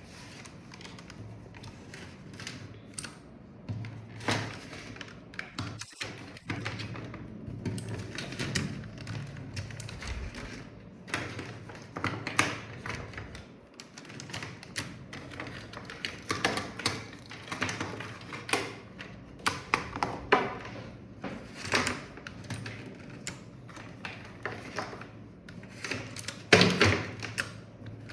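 Scattered clicks, taps and knocks of keyboards and cables being handled on a desk, with a louder thump near the end.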